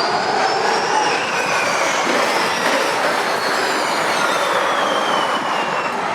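Formula E electric race cars running past at speed: the high whine of their electric motors and gearboxes, several pitches gliding up and down as they accelerate and slow, over a steady rush of tyre and track noise.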